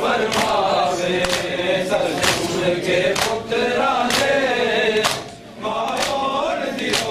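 A group of Shia mourners chanting a noha in unison while beating their chests (matam), with sharp, even strokes about once a second. The chant drops off briefly about five seconds in, then picks up again.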